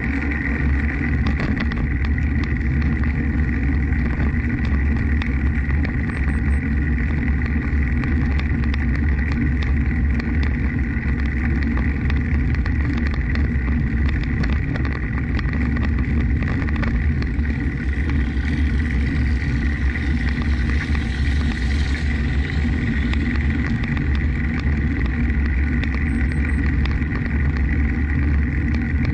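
Wind rushing over the microphone of a bike-mounted camera while riding a bicycle along a concrete bridge path, a steady heavy rumble with tyre-on-pavement noise and scattered small clicks. A faint steady whine sits under it, and the hiss swells briefly about two-thirds of the way through.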